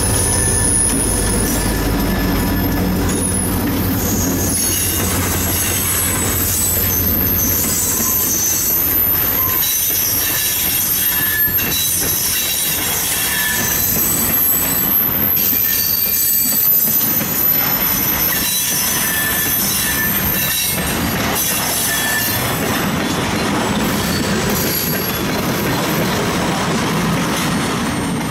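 A freight train passes close by. The diesel locomotive's low engine hum goes by in the first few seconds, then the cars roll past with clattering and a high-pitched metallic squeal. The sound eases off at the very end as the last car clears.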